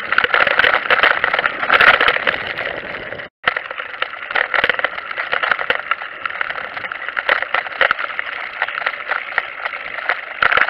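Rattle and rolling noise of a recumbent trike riding over stone paving and tram rails, picked up by a camera mounted on the trike, with dense irregular clicks. It breaks off for an instant a little over three seconds in, then carries on.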